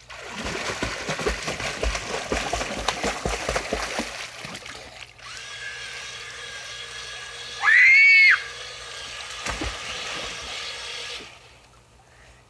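Water splashing and churning as a child swims in a small inflatable pool, heaviest for the first four seconds, then a steadier sloshing that drops away near the end. About eight seconds in, a child gives one short high squeal that rises and falls.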